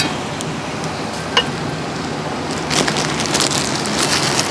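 A cleaver chopping on a thick wooden chopping block. A couple of single knocks come first, then a fast run of chops starts about two-thirds of the way in.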